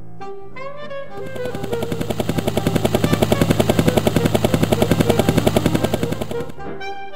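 Cartoon soundtrack: light background music under a rapid fluttering rattle of about eight to nine beats a second. The rattle starts about a second in, swells, then fades and stops about a second before the end.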